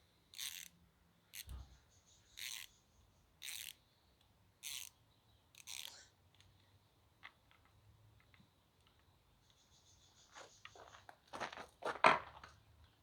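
Hand tool working a hose clamp on a car's upper radiator hose: six short scraping strokes about a second apart, then softer scattered ticks and a louder cluster of clicks near the end.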